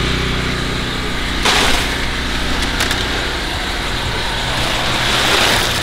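Steady engine hum of a running portable generator. A burst of hissing noise comes about a second and a half in, and a louder hiss builds toward the end.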